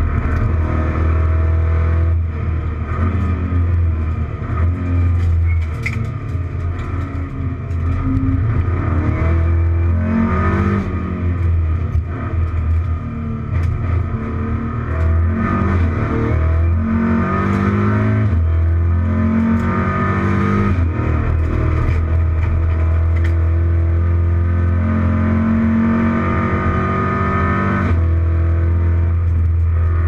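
Racing car's engine heard from inside the cockpit at full race pace, its pitch repeatedly climbing and dropping back through gear changes and braking, over a loud steady low drone of road and cabin noise.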